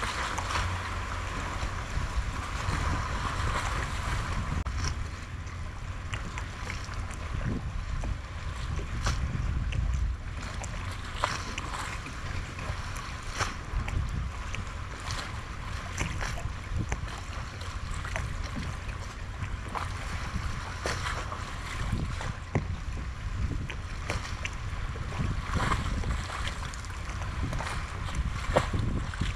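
Open-water ambience: wind buffeting the microphone as a steady low rumble, with small waves lapping and scattered light clicks and knocks.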